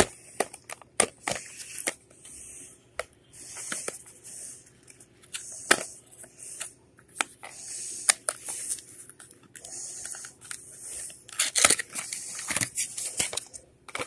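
Packaging being handled and torn open by hand: irregular clicks and taps with several stretches of rustling and tearing.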